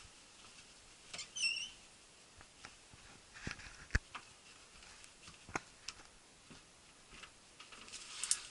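Quiet indoor footsteps and handling noise as a camera is carried through a house: a short wavering squeak about a second in, a sharp click at about four seconds, scattered softer taps, and a brief rustle near the end.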